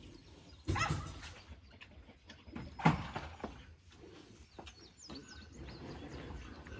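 Birds chirping, a run of short quick chirps about four to five seconds in, with two knocks, one just under a second in and a sharper, louder one about three seconds in.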